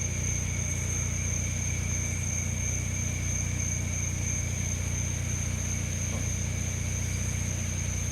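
A steady low hum, like a running engine or machine, with night insects droning steadily at a high pitch over it.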